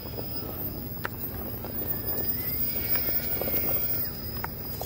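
RC rock crawler with a Holmes Revolver 540 1400kv brushless motor and shaft-driven AR60 axles climbing rock at crawling speed: a faint motor and drivetrain whine that rises and falls with the throttle, over tyres scrabbling on the rock. A few sharp clicks come from parts knocking against the rock.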